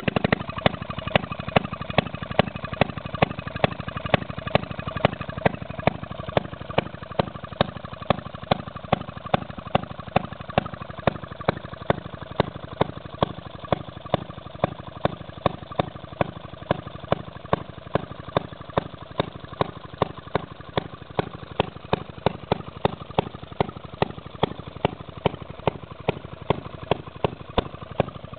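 1917 Maytag upright single-cylinder 1/2 hp gas engine running steadily on its own. It gives a rapid, even train of firing strokes, with a louder pop recurring about every two-thirds of a second.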